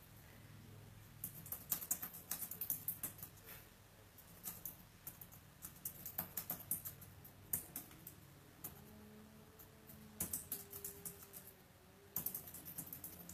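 Typing on a keyboard: bursts of quick key clicks with short pauses between them.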